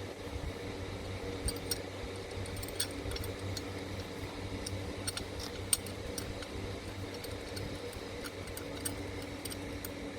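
Faint light clicks and taps of a metal clamp being handled and fitted onto a metal beam, over a steady low hum.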